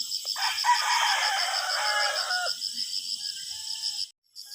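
Chickens clucking and squawking for about two seconds, over steady pulsing insect chirping. The sound cuts out briefly near the end.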